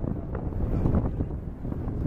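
Wind buffeting the camera microphone, a dense low rumble that swells and dips.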